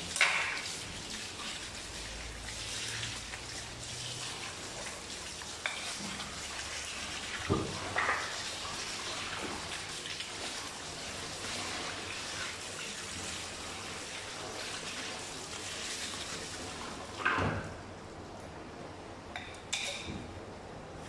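Water running from a hose onto a wooden cutting board as pieces of tuna are rinsed under it, with a few knocks as the fish is handled on the board. The running water stops a few seconds before the end.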